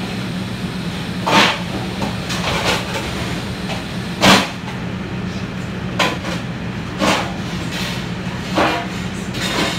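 Steady hum of a commercial kitchen exhaust hood fan, with half a dozen short, loud scrapes and knocks from cleaning a flat-top griddle. The loudest come about one and a half seconds and four seconds in.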